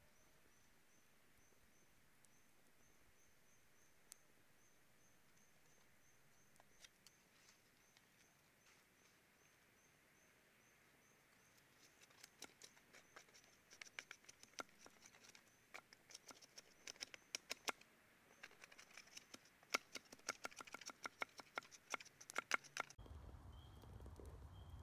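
Faint night insect chirping, a steady high-pitched pulse about two to three times a second, while a small campfire crackles and pops, the pops coming thick and fast from about halfway. Near the end the sound changes abruptly to a low hum with a lower-pitched chirp.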